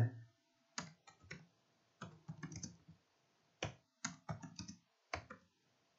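Faint clicking of a computer keyboard being typed on: irregular keystrokes in short clusters with brief pauses between them.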